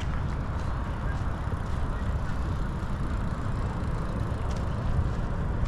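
Steady low rumbling background noise with no distinct events, the kind of din heard while walking outdoors.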